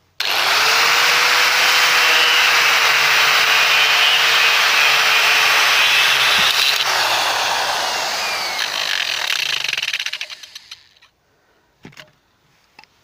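Angle grinder spinning a CD in place of a cutting disc, starting abruptly and running loud with a steady whine while the CD is pressed against a mobile phone. About seven seconds in it is switched off and the whine falls in pitch as it spins down, dying out about eleven seconds in.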